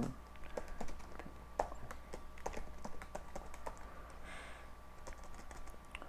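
Computer keyboard typing: irregular, separate keystrokes, a few a second.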